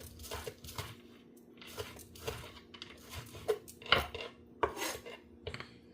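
Kitchen knife cutting onion, peppers and garlic on a cutting board: about ten irregular, separate knocks of the blade against the board.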